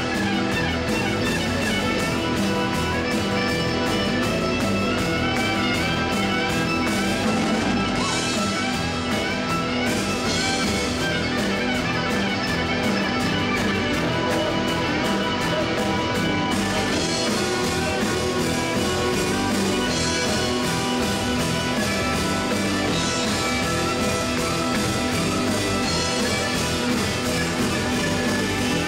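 Live band playing an instrumental: fiddle over amplified electric guitars, bass and a drum kit keeping a steady beat.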